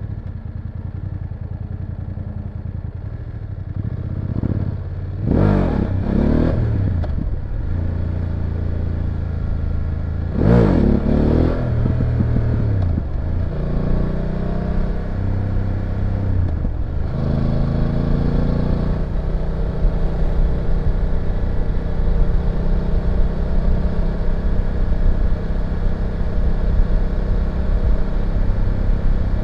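BMW F850GS parallel-twin motorcycle engine revving hard twice, its pitch rising and dropping with each gear change, then settling into a steady drone at cruising speed.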